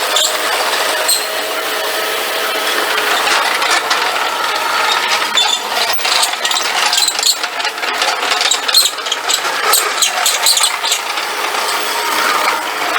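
Mustang MTL25 compact track loader running, its engine working steadily with clanking and rattling from the tracks and bucket as it moves soil. The playback is sped up, which raises the engine's pitch.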